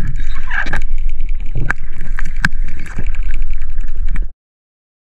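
Muffled underwater sound from a camera on a speargun: a steady low rumble and water noise with many sharp clicks and knocks. It cuts off abruptly a little past four seconds in.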